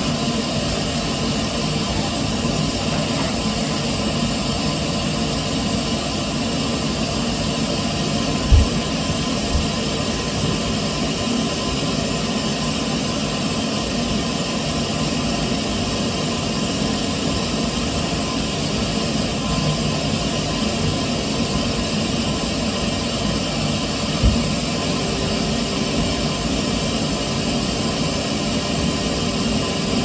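Pink Numatic Hetty canister vacuum cleaner running steadily with its hose nozzle working over a fabric sofa, a constant whooshing motor-and-suction noise. A few dull knocks sound over it, the loudest about eight and a half seconds in and another near 24 seconds.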